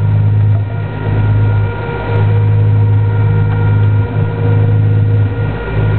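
Fishing boat's engine running steadily underway, a deep low drone with a few fainter steady tones above it, dipping briefly two or three times.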